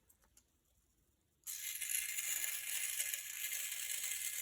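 Small electric motor and plastic gears of a salt-water-powered toy robot kit starting up about a second and a half in and running steadily with a rattling whir as the robot drives off, showing its salt-water battery is supplying power.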